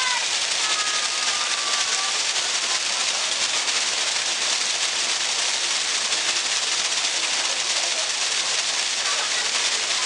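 Artificial waterfall: a thin column of water falling from a height into a shallow pool, splashing with a steady, even hiss.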